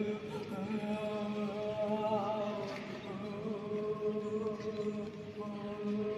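Sustained vocal chanting: a steady low drone held without a break, with a wavering higher voice line over it.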